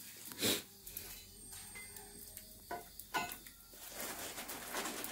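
Krupuk crackers frying in hot oil in a wok over a wood fire, sizzling, with a few sharp knocks and scrapes of the spatula and spoon against the wok; the sizzling hiss grows stronger near the end.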